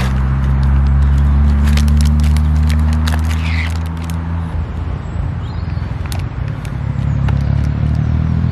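Low, steady rumble of road-traffic engines on the roundabout, its note shifting about halfway through. Over it, the crinkle and crackle of plastic film being peeled off a packaged microwave burger, mostly in the first half.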